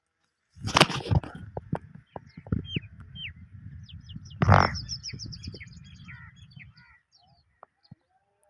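Small birds chirping: many short, quick, descending calls from a flock, with a low rumble under them. Two loud bursts break in, one near the start and a louder one about halfway through.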